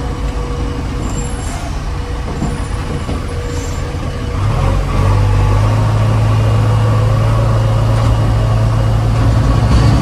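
Heavy diesel engine running steadily. About four and a half seconds in it grows louder, with a deep steady hum.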